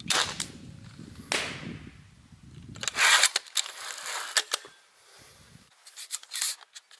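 Repeating slingshot rifle shooting: sharp snaps and clacks of the bands and mechanism, one at the start and one about a second later, then a quick run of them from about three seconds in, and another burst near the end.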